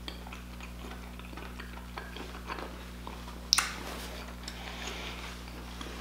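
Close-miked chewing of king crab meat: soft wet mouth clicks and smacks, with one sharper smack about three and a half seconds in. A steady low hum runs underneath.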